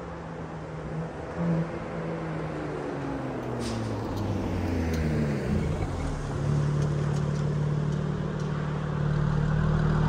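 BMW G82 M4's twin-turbo straight-six, fitted with an aftermarket downpipe and mid-pipe, running out on the road. Its note falls in pitch over the first several seconds, then settles into a steady low drone.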